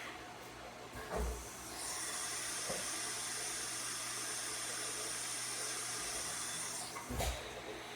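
A steady hiss of compressed air, running about five seconds, with a thump just before it starts and another after it stops.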